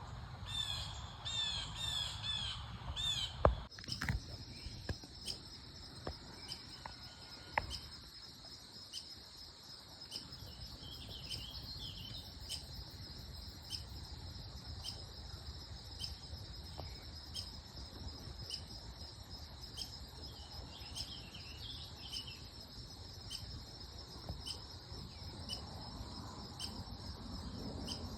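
Harsh, repeated squawking bird calls for the first few seconds, then a steady high-pitched insect chorus pulsing about three times every two seconds, with a few faint clicks.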